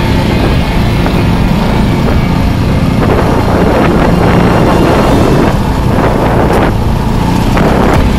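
KTM motorcycle engine running steadily under way, with wind rushing over the microphone that grows stronger about three seconds in.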